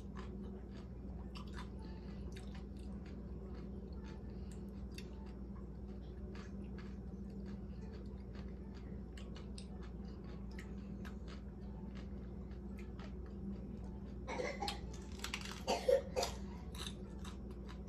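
Close-up chewing of a chicken taco, with soft wet mouth clicks over a steady low hum. Louder bites and crunching come near the end.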